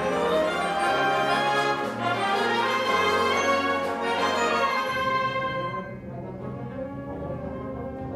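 Concert band playing a loud, full passage led by brass over held bass notes that step to new pitches. About six seconds in it drops to a softer, darker passage.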